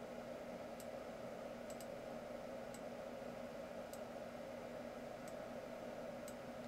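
Faint, scattered clicks of a computer mouse, about one a second, over a steady low hiss of room noise.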